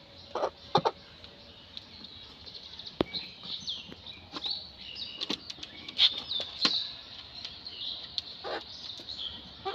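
Birds chirping in quick, high notes throughout, with a handled hen giving a few short clucks, twice near the start and once near the end.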